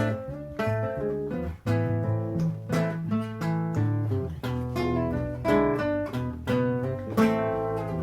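Acoustic guitar playing chords with sharp attacks in a steady rhythm, an instrumental break between sung verses of a slow folk ballad.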